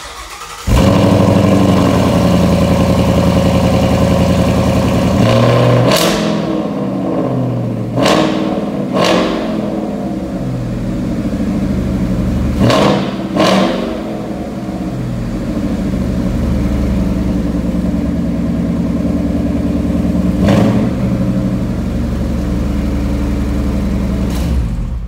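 Ford Mustang GT's 5.0 V8 breathing through a Ford Racing by Borla exhaust, cold-starting: it catches less than a second in and runs a loud high idle that settles after about five seconds. It is then blipped six times with short revs, two pairs in quick succession, idling steadily between them.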